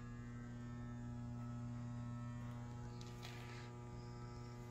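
Steady electrical hum with a low buzzing tone and a ladder of overtones, with a brief rustle about three seconds in.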